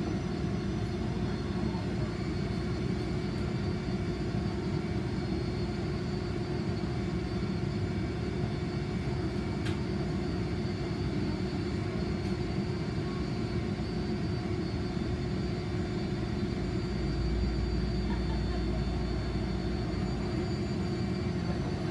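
Cabin noise inside a Toyama Chitetsu city tram: a steady low rumble with a steady hum, a little deeper for a few seconds near the end.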